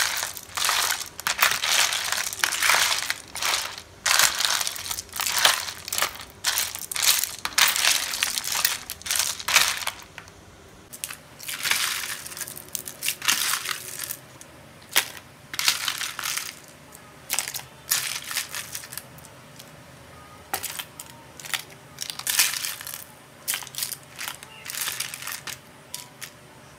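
Metal ladle stirring a chicken-feet salad with ice cubes in a plastic bowl: a rapid run of crunching, clattering scoops, growing sparser and more spaced out about ten seconds in.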